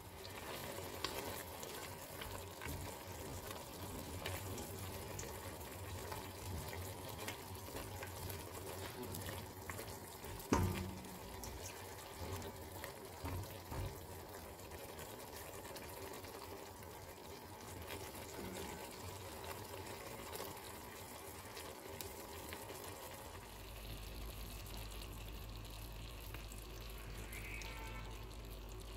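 Tomato and garlic sauce simmering in a stainless steel pan: a quiet, steady sizzle with small scattered ticks. A sharp click about ten seconds in, and a low hum comes in near the end.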